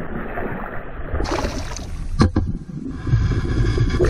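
Hooked largemouth bass thrashing at the surface beside the boat, splashing as it is reeled in; a loud splash about a second in and a sharp knock about two seconds in.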